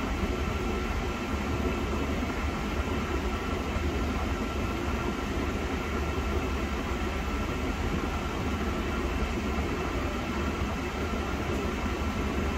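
Steady rush of air from the dash vents of a 1986 Mercedes-Benz 560SEL with the freshly recharged air conditioning running, over a low steady hum from the idling engine, with a faint steady whine.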